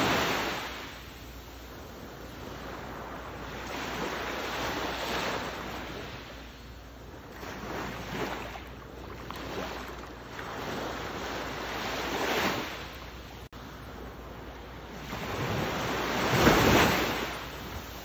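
Ocean waves washing in one after another, a swell of surf noise every few seconds, the loudest near the end. A split-second dropout falls just past the middle.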